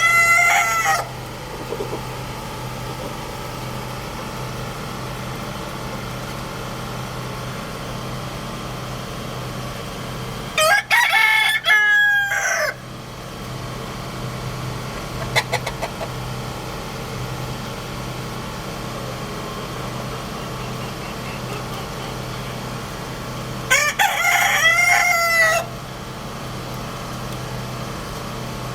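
Roosters crowing. One crow ends just as the sound begins, then two full crows of about two seconds each come about eleven and twenty-four seconds in, with a few short clucks between them. A steady low hum runs underneath.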